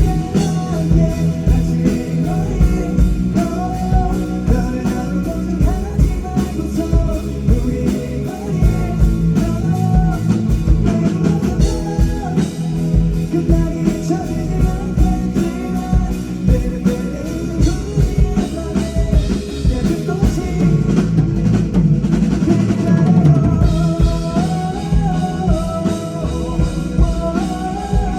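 A live rock band playing a song: a drum kit keeping a steady beat, with guitar, and a sung vocal line over it.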